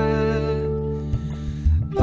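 Gentle instrumental music with long held notes, between sung lines of a worship song.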